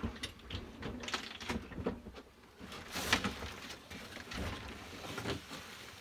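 Handling noise around a compact refrigerator: scattered light knocks, scrapes and rustles as it is steadied and moved about. The loudest is a sharp scrape or rustle about three seconds in.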